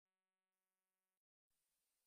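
Near silence: digital silence before the logo's sound begins.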